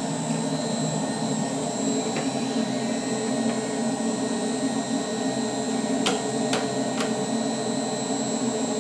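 Blower of a Rotronics Flow Scan air-filter flow bench running steadily, a dense motor drone with a high whine, while a motorcycle air filter is swapped on its test plate. Three sharp clicks come near the end as the filter is handled and seated.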